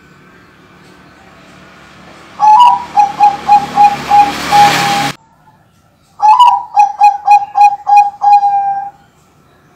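Bangkok-bred perkutut (zebra dove) cooing in two song phrases. Each phrase opens on a slightly higher note and runs into a quick string of short, even coos, and the second phrase ends on a longer held note. A hiss rises under the first phrase and cuts off abruptly.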